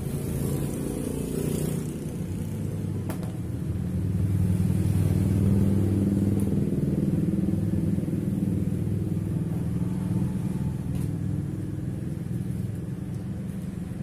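Steady low rumble of a motor vehicle engine running, growing louder about four seconds in.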